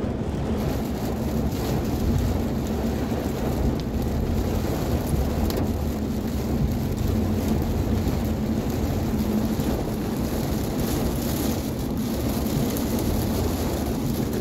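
Heavy rain pelting the windscreen and roof of a car, heard from inside, over a steady low rumble of the car driving on the wet road.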